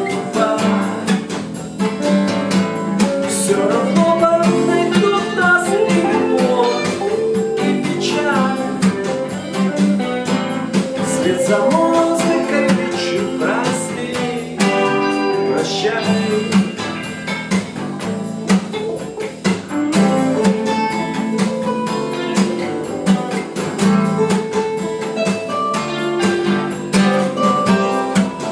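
Acoustic guitar strummed steadily along with a backing track played through a small speaker, a lead melody line with bent notes running over the chords.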